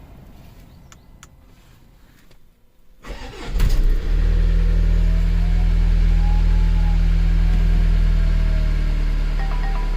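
Jaguar F-Pace 180D's 2.0-litre four-cylinder diesel cold-starting about three seconds in, then idling steadily. A faint whistle rises and falls over the idle: the harsh cold-engine turbo whistle.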